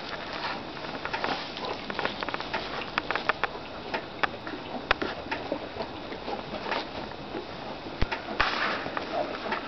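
Goats shifting about in straw bedding: a continuous rustle with many irregular clicks and knocks. A louder, denser rustle comes near the end.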